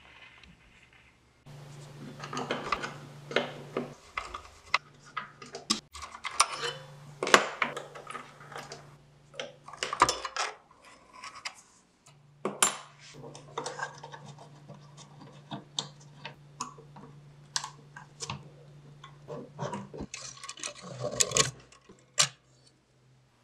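Metal parts of an antique Stromberg-Carlson telephone's switchhook clicking, clinking and scraping against the wooden case as the hook lever and its contact-spring assembly are handled and worked loose. The clicks come irregularly, several a second at times, with scraping between them.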